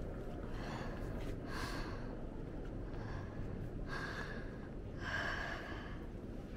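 A person breathing hard and audibly, several heavy breaths in and out about a second apart, out of breath from the climb up the dome stairs.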